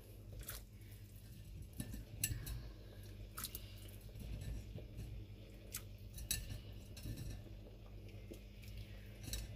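Raw chicken feet being dropped by hand into a pot of hot water, with faint light clinks and knocks scattered through, over a low steady hum.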